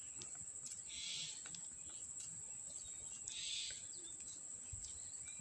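Faint outdoor ambience: a steady high-pitched insect buzz, with two short soft rustles, one about a second in and one after about three seconds.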